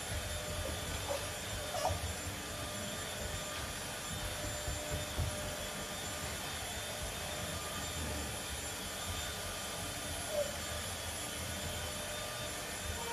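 Steady, even background hum with soft, irregular low thumps and scuffs of Samoyed puppies' paws and feet on a hardwood floor as they scamper and tug at a flirt pole. There are a couple of brief faint squeaks, about two seconds in and again near ten seconds.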